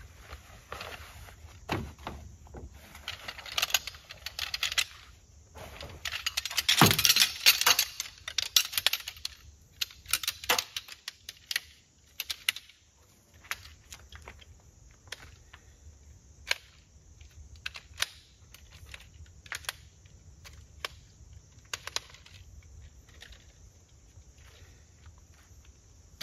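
Camping gear being handled: rustling and clattering, loudest about seven seconds in, then a string of light clicks and knocks as a folding wooden stand's poles are unfolded and its legs set down.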